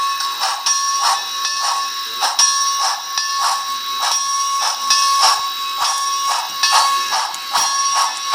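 Model steam locomotive's sound decoder playing a running exhaust chuff through its small onboard speaker, a steady beat of about two to three chuffs a second, with a steady high whine beneath.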